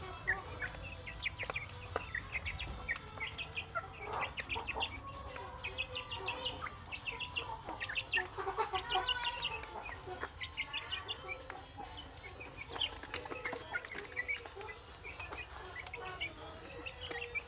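A flock of young chicks peeping and clucking while they peck at their grower feed: many short, high peeps over one another, with some lower clucks and scattered light clicks.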